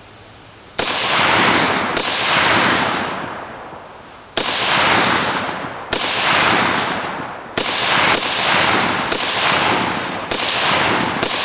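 About nine gunshots, irregularly spaced, some in quick pairs, each with a long echoing tail. They are shots at a Tannerite target that does not go off.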